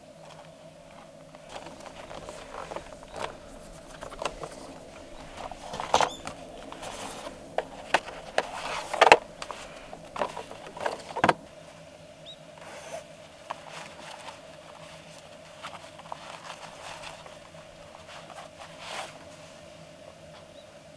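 Hands unboxing a lantern speaker: cardboard box and packaging rustling and scraping, with a cluster of sharper knocks and clicks in the middle, then lighter scattered handling sounds.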